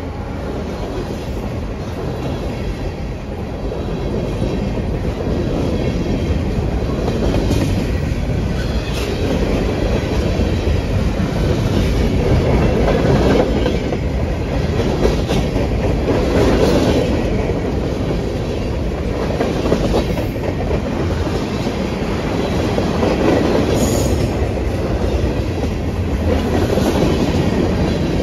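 Freight cars of a passing train (boxcars and a covered hopper) rolling by close up: a steady rumble of steel wheels on the rails with scattered clacks as the wheels cross rail joints. A brief high wheel squeal near the end.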